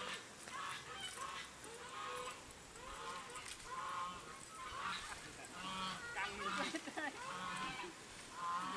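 Domestic fowl calling: a run of short honking calls, about two a second, louder in the second half.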